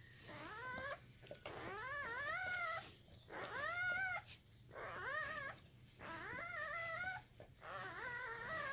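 Newborn German Shepherd puppies squealing and crying: about seven high-pitched whimpering cries in a row, each rising then falling and lasting about a second.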